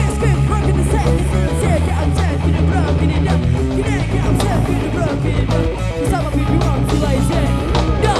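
Rock band playing live through a PA: electric guitars over bass and drums in an instrumental passage with no singing, the lead guitar bending notes.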